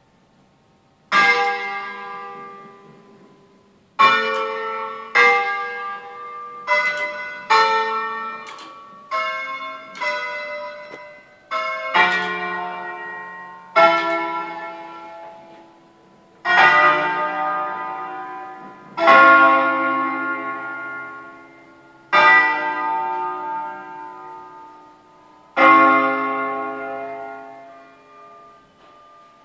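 A peal of eight church bells in D-flat, cast by L. D'Adda in 1954, played as a bell concert: single bells struck one after another at different pitches, each ringing on and fading. The strikes come in quick succession at first, then space out, and the last one dies away near the end. Heard from inside the sacristy on a phone recording.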